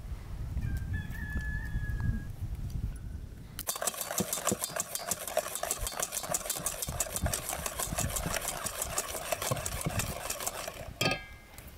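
Wire whisk beating cake batter against an enamel bowl: a fast, steady run of clicking and scraping strokes that starts about three and a half seconds in and stops shortly before the end.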